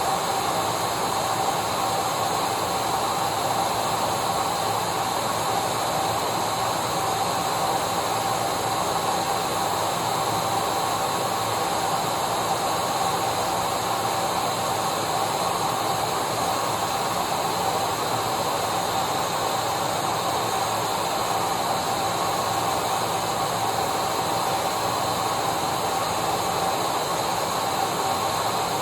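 Vacuum cleaner motor running steadily: a constant whirring hiss with a steady whine, unchanging throughout, played as white noise to soothe a colicky baby.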